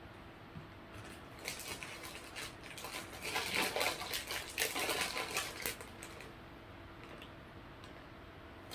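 Plastic snack wrapper crinkling and crackling as it is handled and opened by hand: a dense run of crackles that builds about a second and a half in and dies down after about six seconds.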